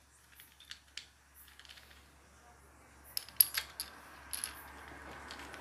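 Small metal clinks and taps as 10 mm nuts are put onto the studs of a motorcycle clutch plate, a few faint ones at first and a quick cluster of sharper clicks past the middle.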